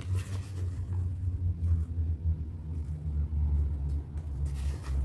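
A steady low rumble throughout, with brief rustles as a doll's satin and lace gown is handled, once at the start and again near the end as the doll is set down.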